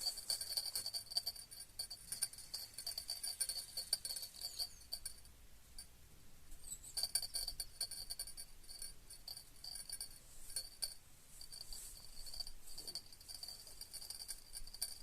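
An insect, cricket-like, chirping in fast high-pitched pulses that run in trains, with a short pause about five seconds in and again near eleven seconds.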